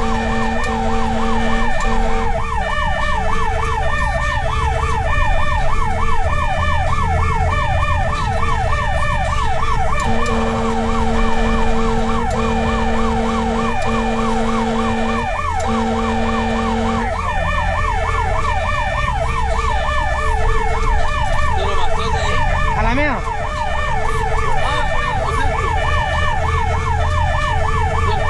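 Fire rescue truck's electronic siren yelping in rapid rising-and-falling sweeps, about two or three a second. Under it a lower horn tone sounds in short regular blasts, held longer for a few seconds around the middle, over a steady low engine rumble.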